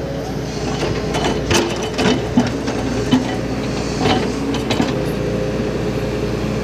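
Hydraulic excavator's diesel engine running steadily under load while its bucket scrapes and pushes dry, stony soil, with scattered knocks and clatters from the bucket and loose clods.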